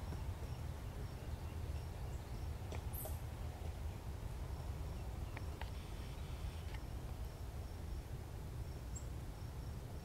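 An insect chirping in a high, even pulse that pauses twice, over a steady low rumble, with a few faint clicks.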